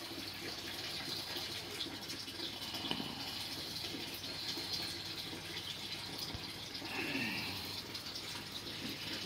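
Kitten suckling at its mother cat's teat: wet sucking and gulping sounds over a steady hiss.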